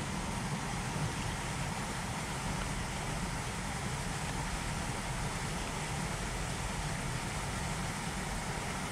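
Steady low rumble with an even hiss of outdoor background noise, with no distinct events.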